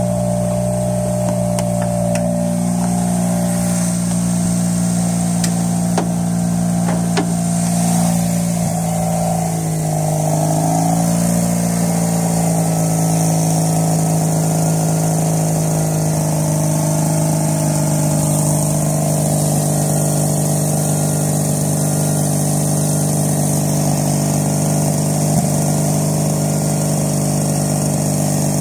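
Mazda RX-8's two-rotor Renesis rotary engine running loud and steady at cold-start idle, heard close up in the engine bay; its pitch dips and wobbles briefly about ten seconds in. The owner takes the loud cold-start noise for the cause of a P0410 code, a secondary air injection system fault.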